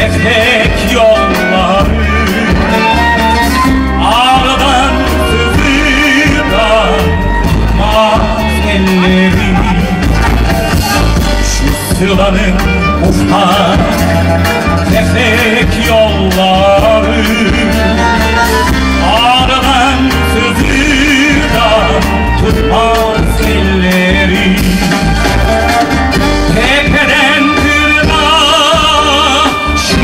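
Live performance of a Turkish song: a tenor singing with vibrato over violin and a backing band with a steady low beat.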